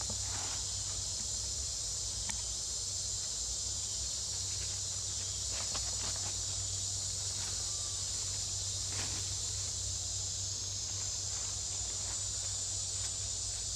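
Steady high-pitched drone of an insect chorus, with a few faint brief rustles of dry leaves as young macaques scuffle on the forest floor.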